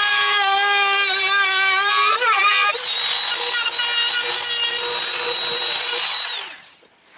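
Electric hand router trimming the edge of a Filon fiberglass roof panel flush, running with a loud, high-pitched whine. Its pitch wavers about two seconds in, and near the end it is switched off and spins down to a stop.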